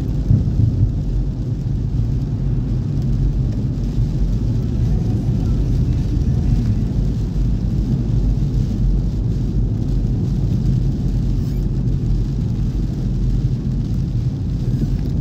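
Car driving on a wet road, heard from inside the cabin: a steady low rumble of engine and tyres.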